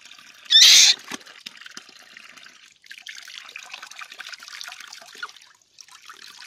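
Water from a garden hose running and trickling over a baby monkey being washed above a tub of soapy water, with one brief loud burst of noise about half a second in.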